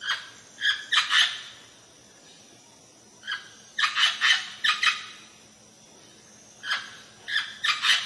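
Green Amazon parrot calling: three bursts of short, loud squawks about three seconds apart, several calls in each burst.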